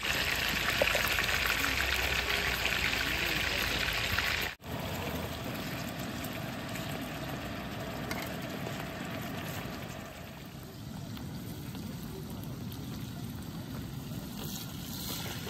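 Pork belly and kimchi sizzling as they fry on a round griddle pan. The hiss is loudest for the first four and a half seconds, then breaks off abruptly and goes on softer.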